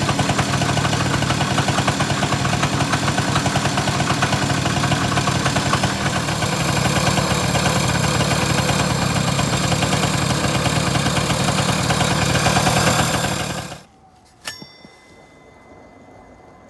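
Honda Broad 90 scooter engine idling steadily, then switched off about 14 seconds in, followed by a single sharp metallic click with a short ring.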